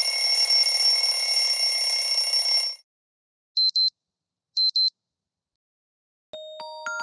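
Ringtones on a Xiaomi tablet, played through its speaker one after another. A harsh, buzzing alarm-like tone sounds for nearly three seconds and cuts off. After a pause come two short double beeps, and near the end a new tone of struck, chiming notes begins.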